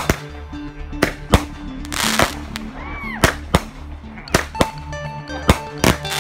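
Aerial fireworks bursting: about ten sharp bangs at irregular spacing, with a crackling hiss about two seconds in, over background music.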